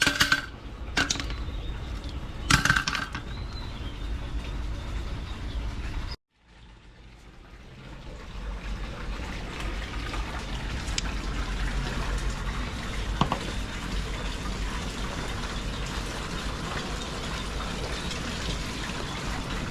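Steady rush of pouring water, with a few sharp knocks in the first three seconds; after an abrupt cut the water noise fades back in and runs on evenly.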